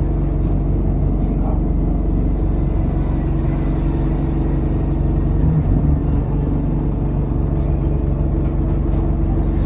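Diesel engine of an ADL Enviro200 single-deck bus running steadily under way, heard from inside the bus with road and cabin rumble, and a faint high turbo whistle. A brief low thump comes a little past halfway.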